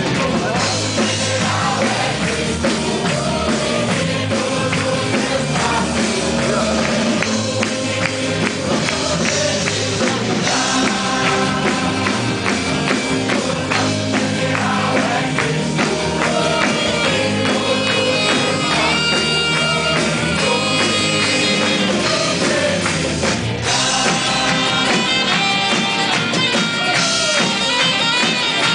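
Live worship band playing a song, with drums, guitar and singing.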